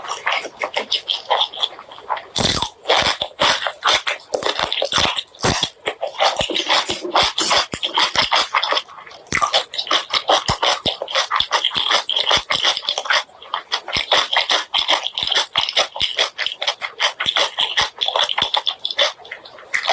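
Close-miked chewing and mouth smacking while eating pork leg curry with rice: a continuous run of wet clicks and smacks, with a louder sharp knock about two and a half seconds in.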